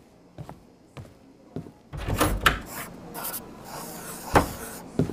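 Light footstep sound effects, a soft click about every half second. About two seconds in, they give way to a louder burst of clattering and hiss with a few sharp knocks.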